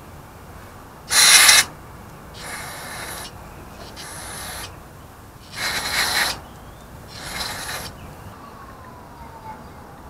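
Aerosol spray can hissing in five short bursts of spraying. The first burst is the loudest.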